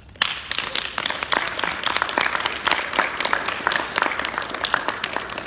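Audience applause: many hands clapping, starting suddenly just after the start and continuing steadily.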